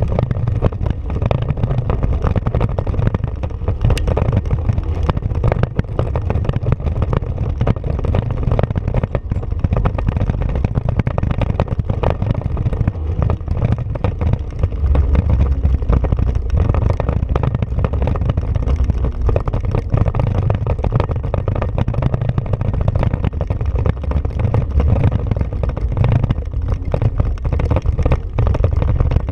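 Honda Pioneer 500 side-by-side driving over a bumpy dirt trail: the engine runs steadily under load, with frequent knocks and rattles from the vehicle jolting over the ground.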